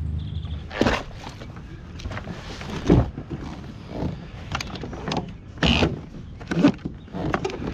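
Hollow knocks and clunks of a plastic fishing kayak's hull and fittings as someone gets into it and settles aboard at the water's edge. There are about seven separate knocks, the loudest about three seconds in and just before six seconds.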